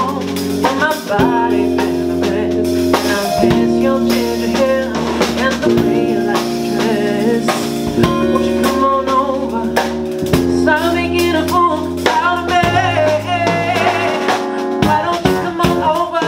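A woman singing a soul-jazz number with a live band: drum kit, bass guitar and held keyboard chords that change every two seconds or so.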